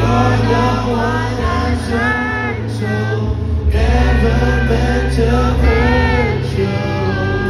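Music: a sung vocal melody over a deep, steady bass line.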